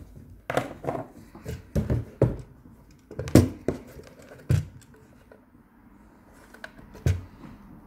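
Handling noise: a run of clicks, knocks and rubbing as a USB-C cable and a small bench power supply's case are picked up and moved about on a wooden desk. The knocks come thickest in the first four and a half seconds, the loudest about three and a half seconds in, with one more knock near the end.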